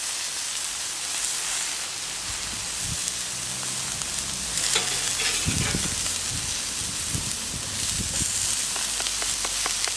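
Cheese-topped beef patties, buns and tomato slices sizzling steadily on the ground-steel plate of a gas plancha, with a few light clicks near the middle and the end.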